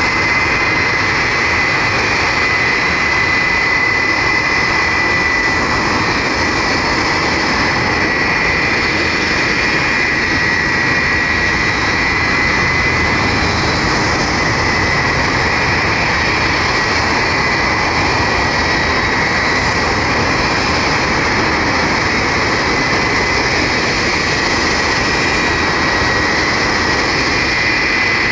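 Ilyushin Il-76's four turbofan engines running loudly and steadily: a wide rush of engine noise with a steady high-pitched whine over it.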